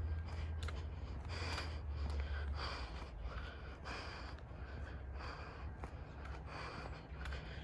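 Heavy, rhythmic breathing close to the microphone, a breath about every two-thirds of a second, over the steady low rumble of a freight train of covered hopper cars rolling past.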